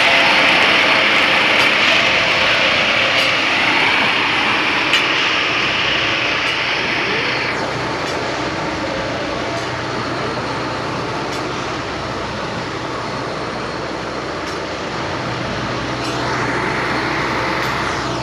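Heavy railway track-maintenance machine running on the rails: a steady engine hum under loud hissing noise that eases about seven seconds in and swells again near the end.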